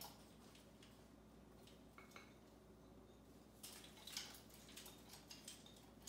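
Faint scattered clicks and taps from an African grey parrot's beak and feet on its perch and hanging toy as it climbs, with a small cluster of them about two-thirds of the way through, over near silence.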